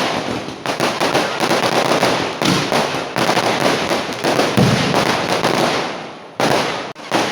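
Fireworks display: a rapid, dense run of overlapping firecracker bangs and crackles. It thins out and briefly drops about six seconds in, then the bangs resume.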